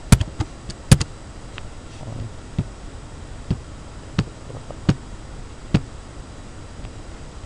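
Computer mouse clicking: two louder clicks in the first second, then five single clicks about three quarters of a second apart as each alert dialog's OK button is pressed.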